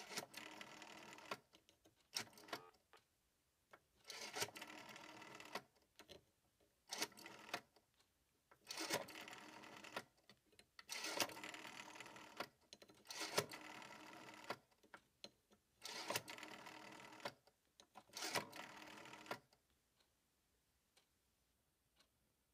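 Rotary telephone dial being turned and released again and again: each release whirs back with a clicking sound while it sends one digit, about nine digits in all.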